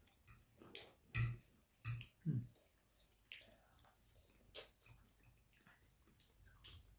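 A person faintly chewing a mouthful of crunchy breaded chili chicken: soft, irregular crunches and wet mouth sounds.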